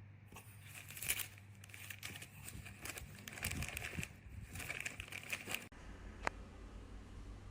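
Crinkling and rustling of something being handled, full of small irregular crackles, which stops abruptly almost six seconds in; a single sharp click follows shortly after.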